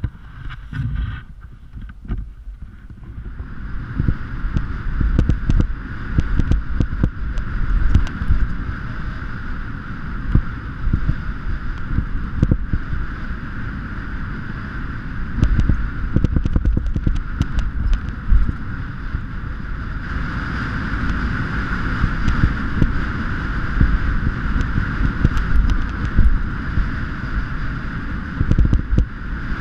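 Mountain bike ridden fast along a dirt forest trail: a continuous rumble of wind on the microphone and tyres on the ground, with frequent short knocks and clatters as the bike rattles over bumps. It is quieter for the first few seconds as the ride gets going, then builds and stays loud.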